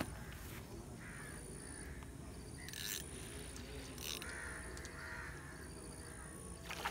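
Short harsh bird calls, several in a row, with two brief scratchy noises in the middle, over faint outdoor background with a thin steady high tone.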